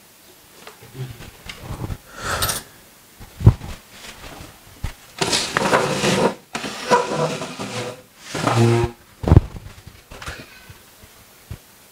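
A man sobbing: irregular bouts of breathy, broken crying with sharp intakes of breath, separated by short pauses.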